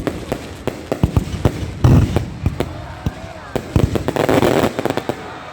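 Fireworks display: aerial shells going off in a quick run of sharp bangs, with a heavier burst about two seconds in and a stretch of dense crackling from crackle-effect shells near four seconds.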